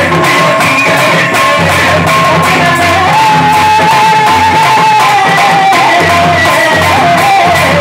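Loud music: a held, wavering melody line over drums.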